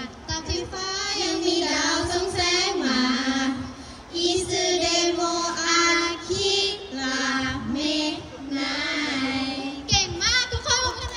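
A young woman's voice singing a slow melody of long held notes, stepping up and down in pitch, with no clear beat underneath.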